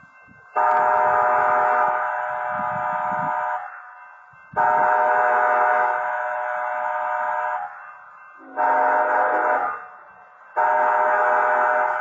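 Locomotive air horn sounding the grade-crossing warning: two long blasts, a short one, then a long one that begins near the end and is still sounding. Each blast is a chord of several notes held steady.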